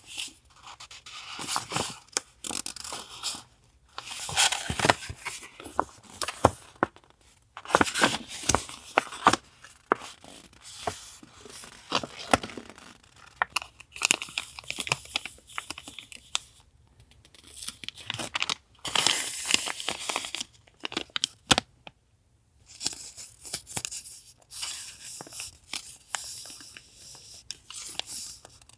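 Paper being torn and crinkled by hand in repeated stretches of one to three seconds, with short pauses between.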